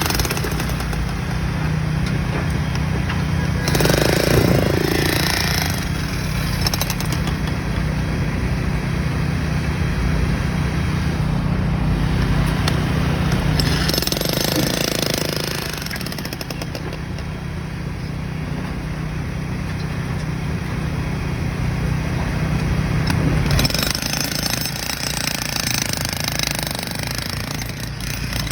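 Construction-site machinery running continuously, with a steady low hum that drops out about 23 seconds in and two louder swells along the way.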